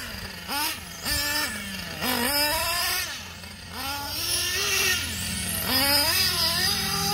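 Small nitro glow engines of 1/8-scale on-road RC cars, a Kyosho Inferno GT2 among them, running on the track. The pitch rises and falls over and over as the cars accelerate and back off for the corners.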